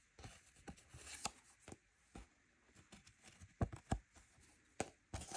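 Paper sticker cards being handled and flipped between fingers: quiet rustling slides and scattered clicks, with a few sharper taps about three and a half to four seconds in and again near the end.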